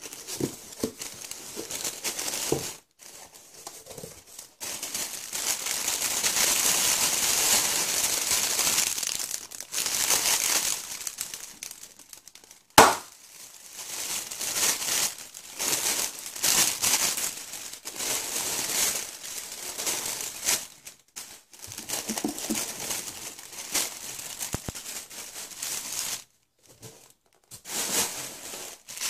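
Crinkling and rustling of plastic packaging and cardboard as plastic air-cushion packing and a plastic-wrapped football are handled and pulled out of a cardboard box, in uneven bursts. A single sharp snap comes a little under halfway through.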